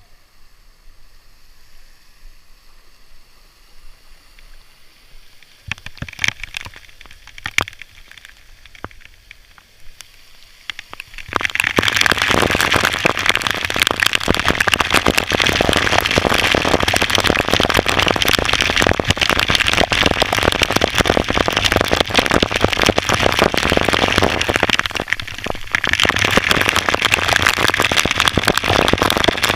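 Water spattering: first a few scattered drop-like clicks, then, about a third of the way in, a sudden loud dense pattering of drops or spray that goes on with only a brief dip.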